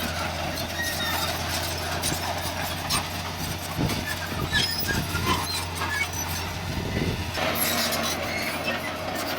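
Heavy diesel earth-moving machine running steadily, with clanking and knocking throughout.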